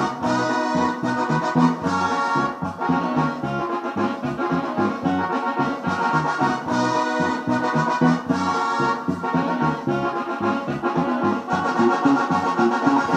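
Norteño music: an accordion plays an instrumental passage over a bouncing, evenly repeating bass line.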